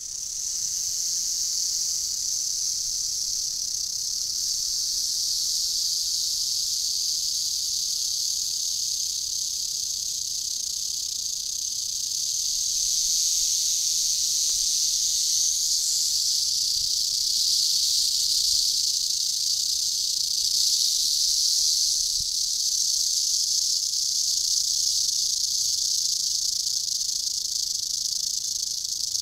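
Eastern diamondback rattlesnake rattling its tail in one continuous high buzz, a defensive warning from the coiled snake; the buzz grows a little louder partway through.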